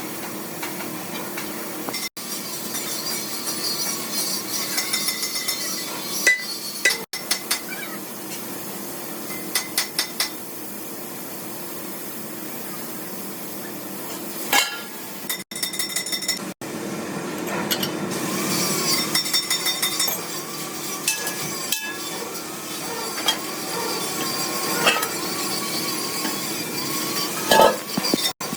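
Metal tools clinking and hammer taps on metal, single strikes and a quick run of several, over a steady hum. The sound drops out abruptly for an instant several times.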